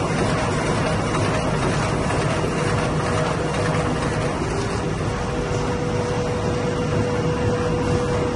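Fully automatic flexo printer-slotter-folder-gluer carton line running, a steady, dense machine noise of rollers and feed sections working. A steady tone joins about halfway through.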